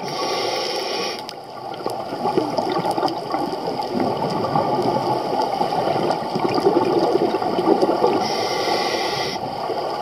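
Scuba diver breathing through a regulator underwater: steady bubbling and gurgling of exhaled air, with a short hiss of inhaling at the start and again near the end.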